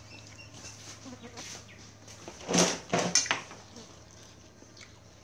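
Two short, loud calls from a farm animal, about two and a half and three seconds in, over a faint steady hum.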